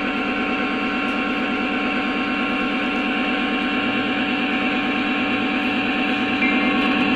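Model Conrail SD40 locomotive's onboard sound system playing a steady diesel engine rumble, getting gradually louder as the locomotive approaches.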